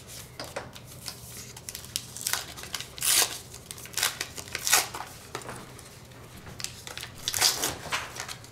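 Foil wrapper of a 1989 Upper Deck baseball card pack crinkling and tearing as it is opened by hand, in several short rustling bursts.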